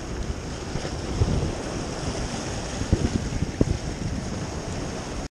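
Sea surf washing against the rocks of a breakwater, with wind rumbling on the microphone in a few brief gusts.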